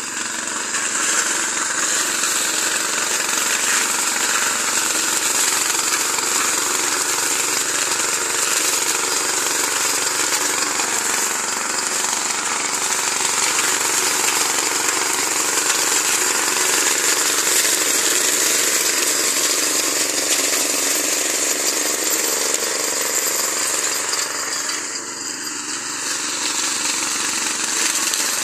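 Walk-behind brush cutter's small petrol engine running steadily under load while its spinning centrifugal blades chop through brush and thumb-thick saplings, with a rattling, clattering edge. The sound eases briefly about three-quarters of the way through, then picks up again.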